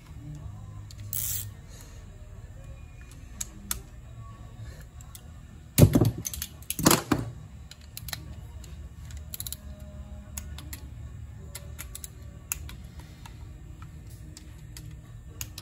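Metal hand tools, a socket and ratchet, clicking and knocking against a motorcycle engine's stator and casing while its bolts are fastened: scattered small clicks, a short hiss about a second in, and two louder knocks around six and seven seconds.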